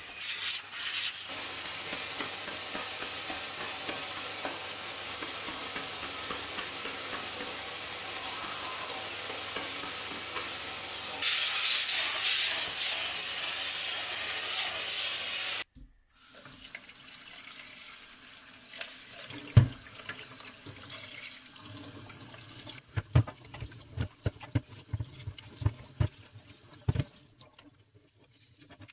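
Canister vacuum cleaner running through a crevice tool, a steady hiss that grows louder about 11 seconds in and then cuts off suddenly. Then water runs in a stainless-steel sink while a clear plastic vacuum dust bin is scrubbed and rinsed, knocking against the sink once loudly and then in a rapid run of knocks near the end.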